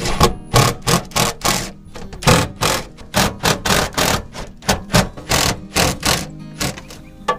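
Cordless impact driver driving screws into a steel-sided wall, hammering in a quick series of short bursts, about three a second, with a brief pause near two seconds in.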